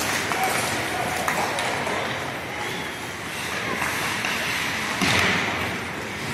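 Ice hockey rink sounds during play: a steady hubbub of skates and distant voices, with scattered clacks and knocks of sticks and puck, and a louder swell about five seconds in.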